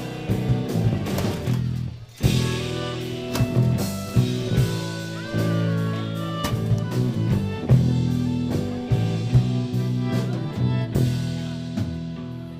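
Live band playing a song, with a short break about two seconds in before the music comes back in.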